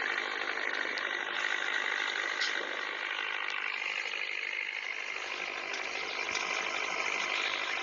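Toy pop-pop (otok-otok) steam boat running with a fast, steady putting.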